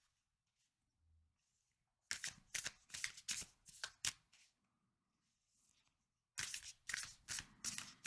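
A deck of tarot cards shuffled by hand, in two bouts of quick card slaps and flutters. The first comes about two seconds in and the second near the end.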